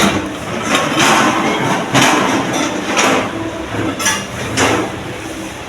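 Knocks and light clinks of hard items being handled and set down, roughly one a second.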